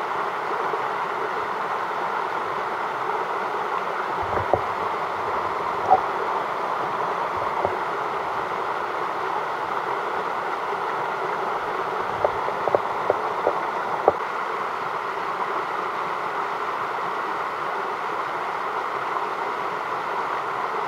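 Steady rush of a creek's flowing water. A few short sharp clicks stand out, with a quick cluster of them just past the middle.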